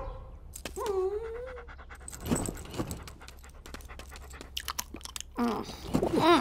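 A dog whining and panting, with short wet clicks of sniffing and licking, and a quick run of whines near the end as it nuzzles a sleeper's face.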